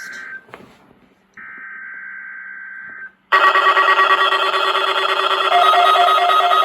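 Emergency Alert System header data bursts over weather radio: a buzzy steady tone that stops just after the start, and a second one-and-a-half-second burst about a second later. About three seconds in, the weather alert receivers' alarms set off together, loud, many steady tones layered with pulsing beeps.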